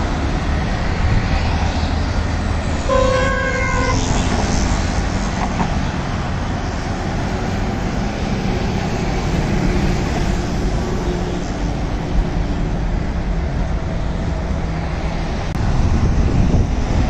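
Steady rumbling roar of a jet airliner on approach mixed with street traffic. A vehicle horn honks once, for about a second, around three seconds in.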